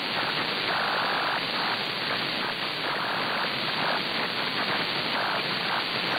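Receiver static: a steady hiss from an RTL-SDR software radio tuned in upper sideband to an empty spot in the 10-metre ham band, swelling a little now and then in the midrange.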